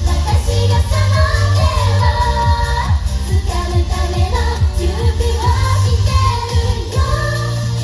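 Live J-pop idol song: female vocals singing over a loud backing track with a heavy bass and a steady kick-drum beat.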